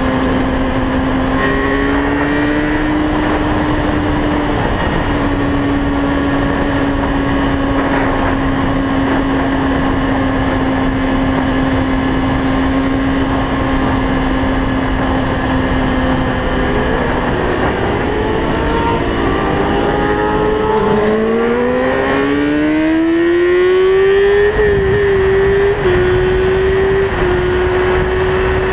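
Motorcycle engine heard from the bike itself at speed, with wind rush over the microphone. It holds a steady pitch while cruising, goes unsettled for a few seconds with the revs dropping and shifting, then climbs in pitch as the bike accelerates through a couple of gear changes and settles.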